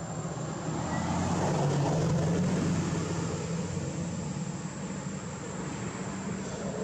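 Engine drone from a motor vehicle, swelling about a second in and easing off after about three seconds, with a thin steady high-pitched whine above it.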